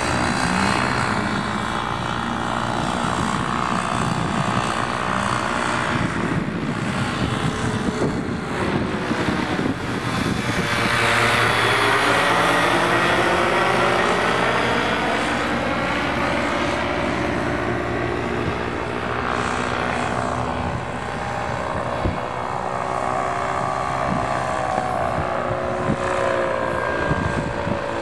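Paramotor engines and propellers droning steadily as powered paragliders fly overhead. One passes close about ten to fourteen seconds in, getting louder, then falling in pitch as it goes by.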